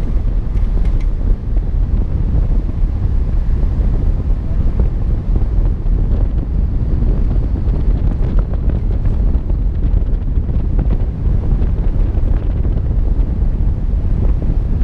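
Wind buffeting the microphone of a hood-mounted camera on a vehicle driving a dirt road, a steady low rumble mixed with the vehicle's road noise.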